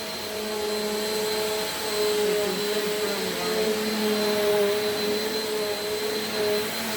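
Bissell PowerForce Compact upright vacuum running over carpet, its motor droning steadily while the agitator brush roll spins into the pile. The motor's pitch wavers slightly as the vacuum is pushed back and forth.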